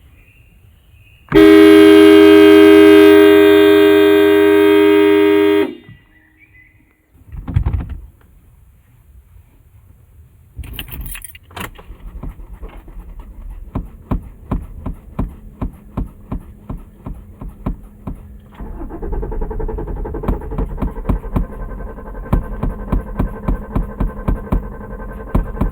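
Car horn: one long honk of about four seconds, followed a couple of seconds later by a low thump. About ten seconds in, keys jangle, then the starter begins cranking the engine with an even rhythm of about two to three beats a second. Some seven seconds later the cranking gets louder with a steady hum under it, and it is still going at the end.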